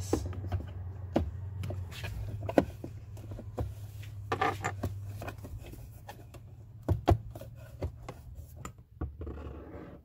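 A plastic dashboard trim pocket being pressed back into the dash, its retaining clips snapping into place: several sharp plastic clicks and knocks, with plastic rubbing and scraping between them.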